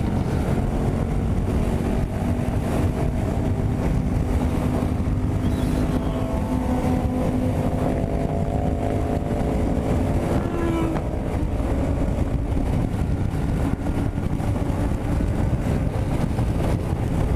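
Yamaha MT-07's parallel-twin engine running at highway speed, around 140–150 km/h, under heavy wind rush on the microphone. The engine note holds steady throughout.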